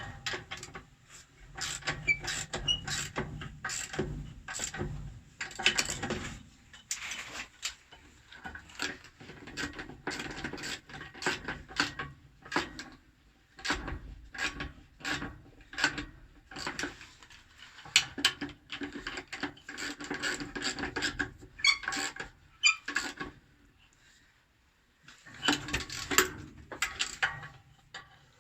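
Wrench tightening the bolts on a pump's flange: irregular metallic clicks and scraping strokes in short runs, with brief pauses as the tool is moved from bolt to bolt.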